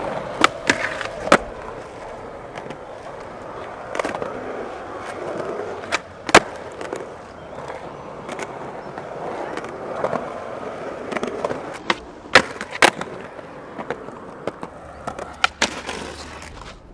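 Skateboard wheels rolling on concrete, broken by sharp wooden clacks of the board popping off the tail and landing, about a dozen times.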